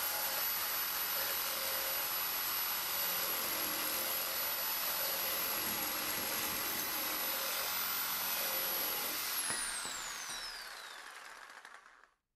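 Reciprocating saw with a carbide-tipped blade cutting through a steel railway rail: a steady, high buzzing whine. About nine seconds in the saw is switched off and its pitch falls as the motor winds down and fades out.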